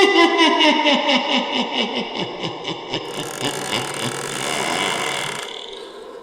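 Horror sound effect: a loud pitched tone that breaks into a rapid stutter of about seven pulses a second, each dipping in pitch, and fades over about three seconds. A hissing noise follows and dies away near the end.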